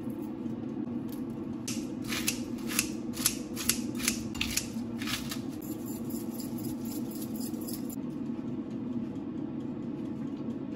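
Crisp lettuce leaves being torn apart by hand: a run of about ten sharp crackling snaps over three seconds, over a steady low background hum.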